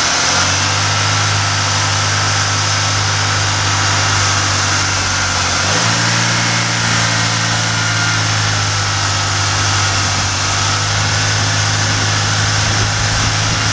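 Single-cam 1.9-litre four-cylinder engine of a high-mileage 1996 Saturn running steadily at idle while it burns off Seafoam poured down the intake to clear oil buildup from the piston rings. The idle steps up slightly about six seconds in.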